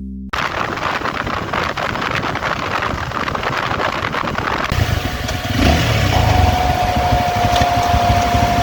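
SYM NH-T 190 motorcycle riding at speed, with wind noise on the microphone over the engine. About halfway the sound changes to a heavier low engine drone with a steady high whine over it.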